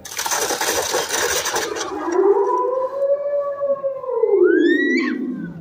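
A harsh burst of noise for about two seconds, then a long wolf howl that rises and falls in pitch, the werewolf's howl. A second, higher howl rises over it near the end.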